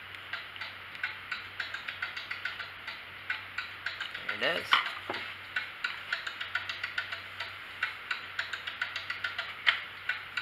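Quick, irregular run of small hard clicks and scrapes: a screwdriver tip working against the plastic and metal parts in a Stihl 290 chainsaw's carburetor compartment. There is a brief sliding sound about halfway through.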